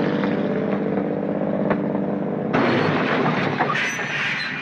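Heavy truck engine running steadily. At about two and a half seconds it gives way abruptly to a louder, rougher rushing noise with brief high squeals near the end.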